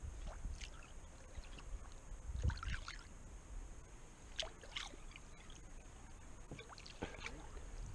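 Soft water sounds around a kayak: small splashes and drips scattered irregularly over a low, steady background.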